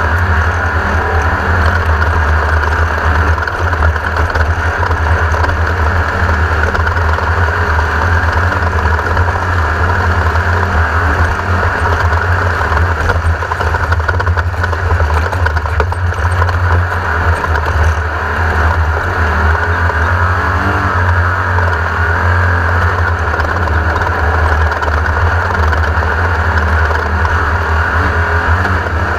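Class 1600 off-road race car's air-cooled VW 1600 engine running steadily under load, with a heavy low rumble and a dense noise of rattle and wind over it.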